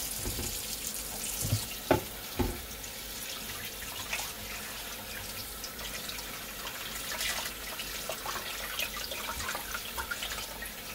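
Cold water running from a kitchen faucet and splashing over a salt-cured trout fillet being rinsed by hand in a basin in a stainless steel sink. A couple of sharp knocks come about two seconds in.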